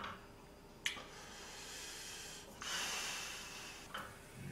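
Pork belly strips sizzling in a frying pan as they are laid in with tongs. There is a light click about a second in, and the sizzling grows louder for a while after the middle.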